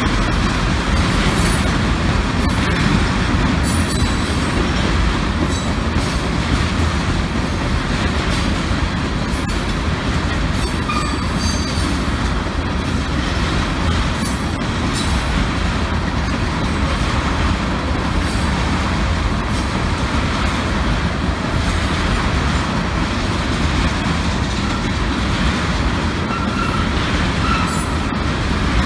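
A freight train of empty ethanol tank cars rolling steadily past, with a constant rumble of wheels on rail, scattered clicks over the rail joints and a few brief faint wheel squeals.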